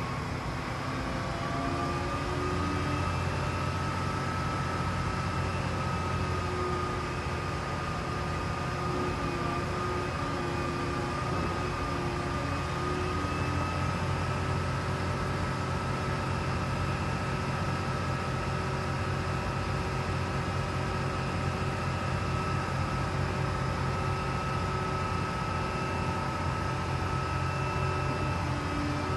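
Cummins QSL9 inline-six diesel of a Hyster RS45-31CH reach stacker running steadily, its note picking up about two seconds in. A thin, high, steady whine from the hydraulics runs over it while the container spreader is worked.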